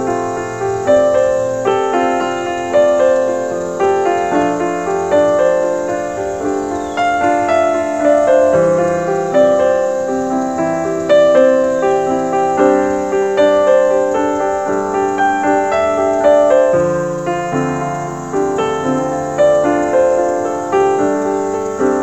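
Piano music: a steady flow of notes over lower bass notes.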